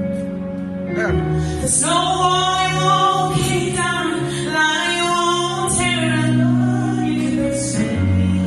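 Gospel song performed live: a solo voice sings long held notes with vibrato over an instrumental backing of sustained low notes and chords.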